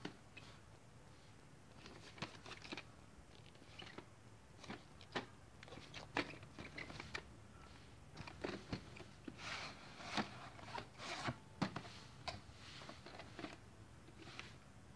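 A VHS tape and its sleeve being handled: an irregular string of small plastic clicks, taps and rustles, busiest in the second half.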